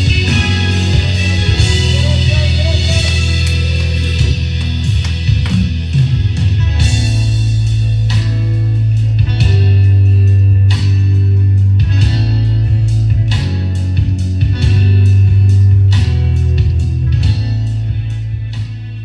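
Instrumental music with guitar over heavy, held bass notes; a steady beat comes in about seven seconds in.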